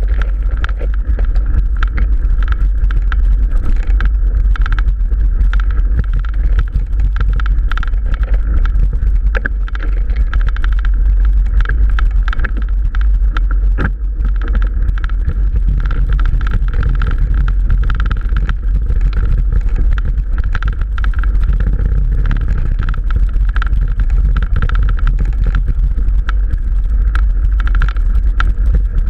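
Mountain bike rolling along a rough dirt track: a loud, steady rumble of wind and vibration with frequent small rattles and knocks from the bike over the bumps.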